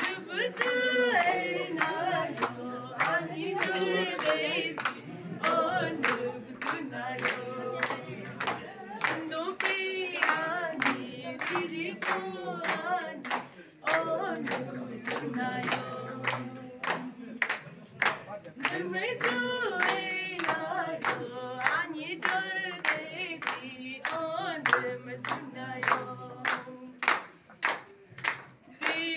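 A group of voices singing a song together, with steady hand-clapping on the beat, about two claps a second.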